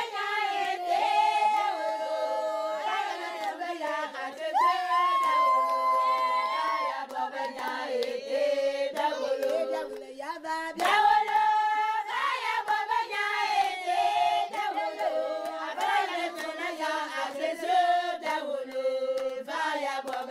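A group of voices singing a traditional Gabonese village song together, with a brief break about halfway through before the singing picks up again.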